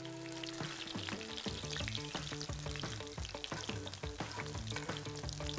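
Breaded chicken cutlets shallow-frying in hot oil in a cast iron skillet: a steady sizzle with many small crackles and pops.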